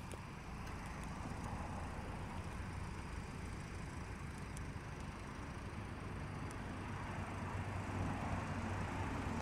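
Road traffic: cars passing on the street beside the level crossing, a steady low rumble that grows a little louder near the end.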